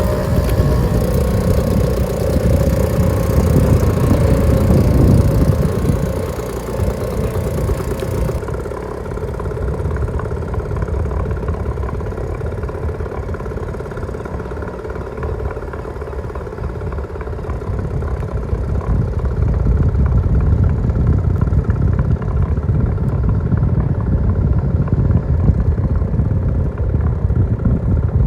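Classic British Seagull two-stroke outboard motors running on small race boats. The engine noise eases off about a third of the way in and builds again after the midpoint.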